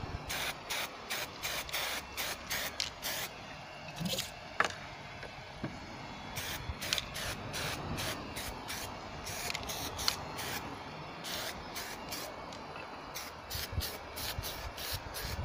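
Aerosol spray can hissing in many short, quick bursts as a base coat is sprayed onto a lamp base.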